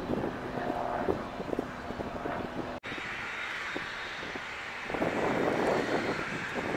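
A United Boeing 737's jet engines running as it rolls along the runway, with steady engine tones. After a short break in the sound, the jet noise of a Spirit Airbus A320 on final approach to land grows louder over the last couple of seconds.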